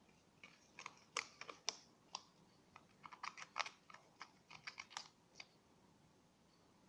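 Slime mixture being stirred, a utensil clicking and tapping irregularly against its container, stopping about five and a half seconds in.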